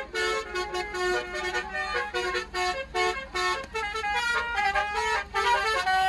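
Basuri (telolet) musical air horn playing a fast tune of short notes that step up and down in pitch.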